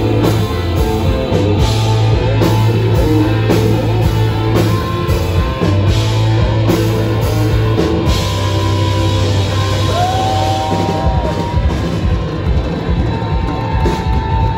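A hard rock band playing live and loud: distorted electric guitar, bass guitar and drum kit, with a singer at the microphone. Long held, bending high notes ring out in the second half.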